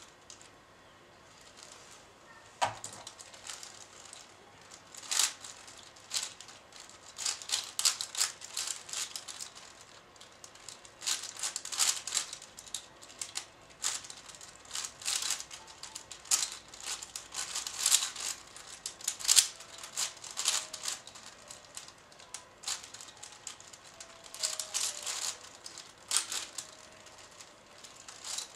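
Plastic 5x5 puzzle cube being turned fast in a timed speedsolve: quick bursts of clicking and clacking as the layers are turned, broken by short pauses. A single sharp knock about three seconds in, as the solve starts.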